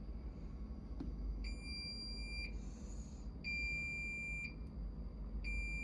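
Bosch Series 4 washing machine's control panel beeping at volume setting 2, sounding a one-second, high-pitched beep about every two seconds, three times.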